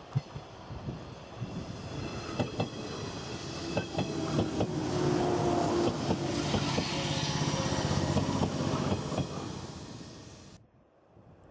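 A 115-series electric multiple unit running on the line, its wheels clacking over rail joints with a steady motor hum. The hum swells about halfway through, then fades and cuts off suddenly near the end.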